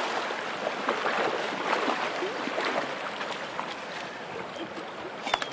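Fast, shallow river water rushing and splashing, slowly fading. A quick run of sharp clicks comes near the end.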